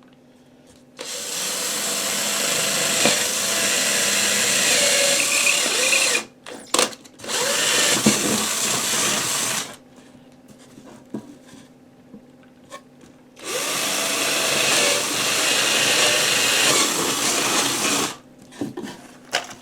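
Power drill boring holes through plywood in three runs of a few seconds each, the first the longest, with short pauses between.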